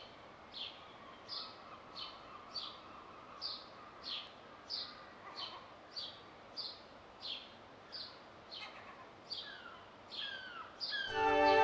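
A bird calling a long, regular series of short notes that each slide downward in pitch, about one and a half notes a second, over faint outdoor ambience. Music comes in loudly near the end.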